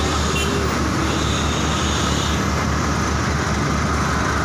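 Street traffic with a bus engine running close by, a steady low rumble that does not change.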